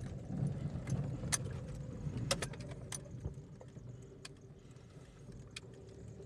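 Car driving slowly, heard from inside the cabin: a low engine and road rumble with a faint steady hum, and scattered small clicks and rattles at uneven intervals. The rumble eases off after about four seconds.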